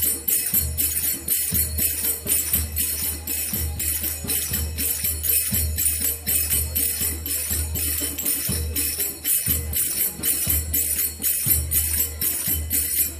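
Brass finger cymbals (zills) clinking in a rapid, steady rhythm over live drums beating a deep pulse.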